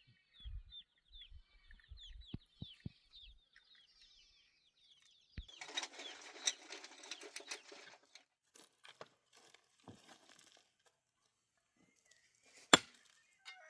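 A small bird twittering: a quick run of short, high, falling chirps over the first few seconds. This is followed by about two seconds of crackly noise, and a single sharp click near the end, which is the loudest sound.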